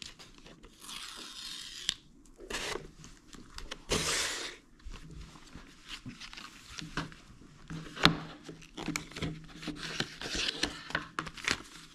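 Paper and cardboard packaging of a watch band being opened and handled: rustling, scraping and crinkling of paper and card. There are two longer rasping bursts, the louder one about four seconds in, and a few sharp taps.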